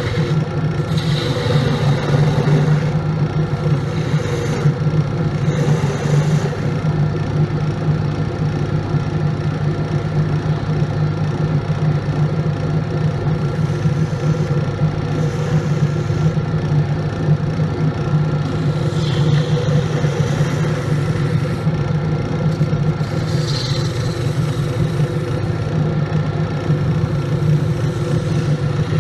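Grizzly wood lathe running with a steady motor hum while a turning tool cuts the spinning wooden blank, the scraping, hissing cut of the tool on the wood coming and going.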